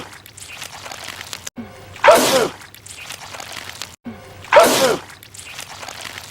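A man sneezing, the same sneeze looped twice about two and a half seconds apart. Each is a brief drawn-in breath, then a loud sharp burst whose pitch falls away.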